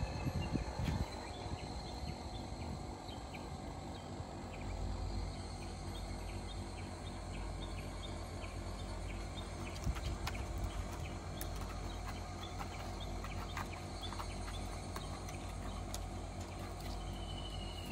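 Outdoor ambience of insects chirping in a steady rhythm, about two chirps a second, over a low rumble. A short falling whistle sounds near the end.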